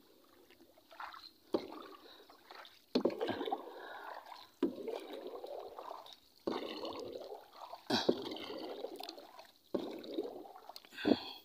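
Water sloshing and splashing in a run of strokes, one about every second and a half, each sharp at the start and then fading.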